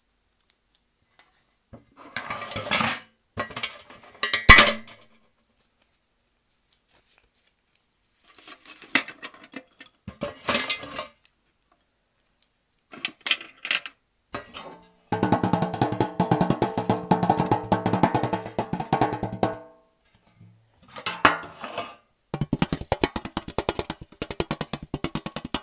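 Close-miked ASMR trigger sounds made by handling small objects: separate scrapes, taps and one sharp click, then two stretches of very fast, even rattling lasting several seconds each.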